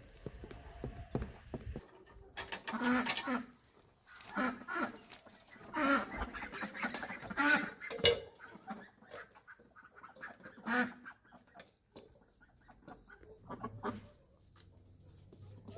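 Domestic chickens calling and clucking in a string of short, separate calls that come in clusters.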